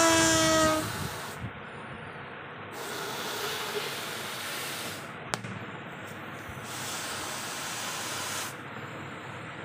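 Breath blown by mouth into a latex balloon as it inflates: several long, airy puffs of rushing air with short pauses between them. It opens with a brief steady pitched tone, and a sharp click comes about five seconds in.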